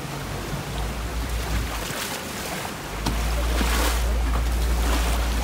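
A boat moving along a fast river: brown water rushing and splashing along the hull, with a couple of louder splashes. A low wind rumble on the microphone grows stronger about three seconds in.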